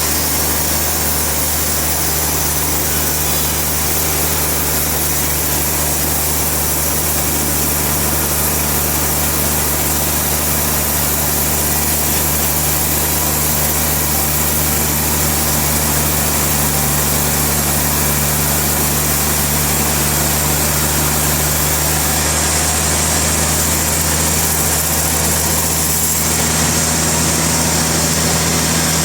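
Sawmill machinery running: a steady engine drone with a hiss over it, holding an even level, the hiss shifting slightly near the end.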